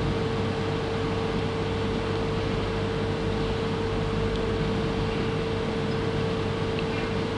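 Steady background hiss with a constant hum, without change: the recording's room tone.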